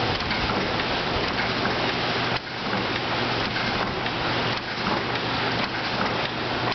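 Alldays & Onions two-stage forge bellows being pumped by hand lever, blowing a steady rushing blast of air into a burning coal fire, with brief dips in the rush a couple of times.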